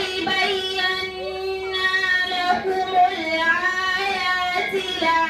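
A girl reciting the Quran into a microphone in a melodic, chanted style, drawing out long held notes that bend slowly in pitch.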